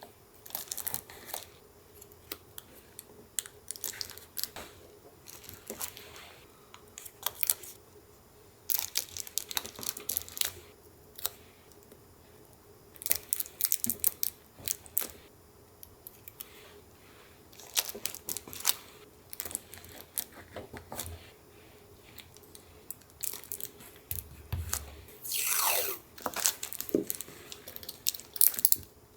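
Paper and collage materials being handled, crinkled and torn in short irregular bursts, with one longer tearing sound near the end that falls in pitch.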